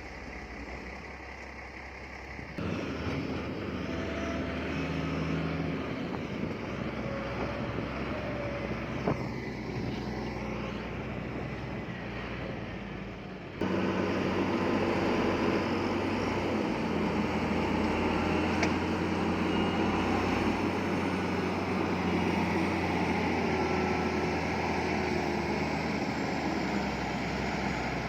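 Diesel engines of heavy earthmoving machinery running, with a steady low drone and some track and load noise. The sound jumps abruptly louder about two and a half seconds in and again about halfway through.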